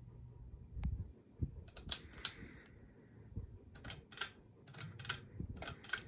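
A hand working the pull chain of a Hampton Bay Minuet II ceiling fan: a string of sharp, irregular clicks from the pull-chain switch and the metal chain. A low motor hum is heard at first.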